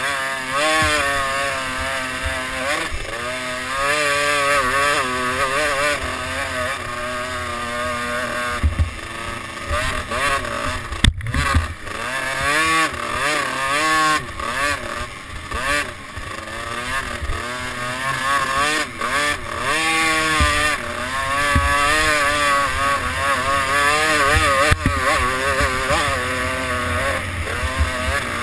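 Engine of an off-road race vehicle heard from an onboard camera, repeatedly revving up and falling back as it is ridden round a dirt track, with wind rushing over the microphone.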